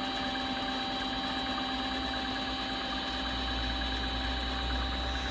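Mini lathe running steadily: an even motor hum with a constant high whine.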